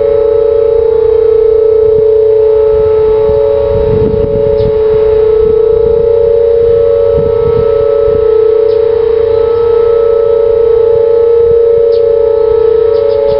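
Whelen WPS 2800-series electronic outdoor warning sirens sounding their steady alert tone in a routine test. Several sirens overlap in two close, steady pitches.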